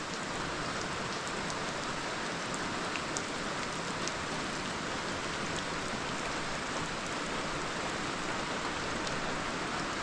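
Steady rain falling on bare ground and into standing puddles, an even hiss with a few separate drop ticks.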